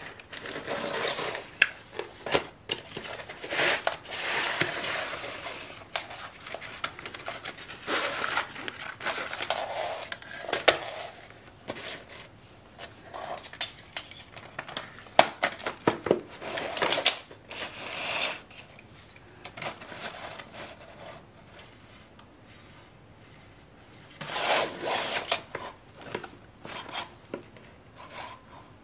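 Unboxing handling sounds: a cardboard box being opened, a fabric drawstring bag rustling, and the thin aluminium panels of a folding camping-stove wind shield clicking and scraping against each other as they are handled and unfolded. Irregular sharp clicks and short rustles, with pauses between.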